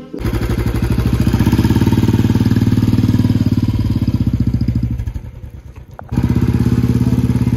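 Royal Enfield 350's single-cylinder engine running as the motorcycle rides off, a fast, even beat of firing pulses. About five seconds in it drops away for a second, then comes back suddenly at full level.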